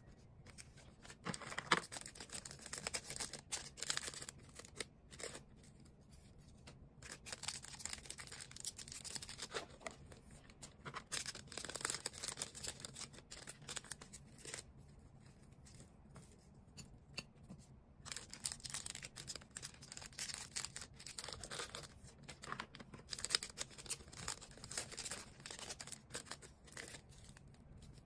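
Hands packing small orders: packaging material rustling and crinkling with tearing and snipping sounds, in irregular bursts with quieter pauses between.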